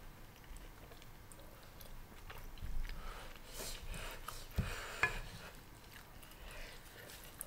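Quiet chewing and mouth sounds of people eating cheesy kimchi fried rice, with a few light clicks of spoons in the pan, two of them sharper about four and a half and five seconds in.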